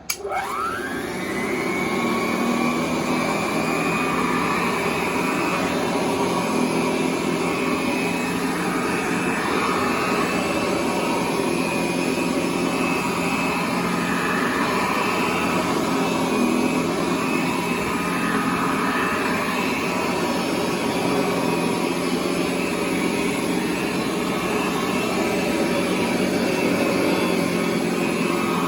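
1929 Hoover Model 725 upright vacuum cleaner switched on: the motor's whine rises quickly as it comes up to speed, then it runs steadily.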